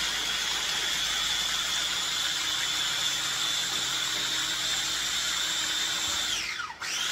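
Electric mini food chopper running steadily with a high motor whine, grinding roasted peanuts into a chili-garlic seafood dipping sauce. Near the end the motor winds down with a falling pitch, then starts again for a short pulse.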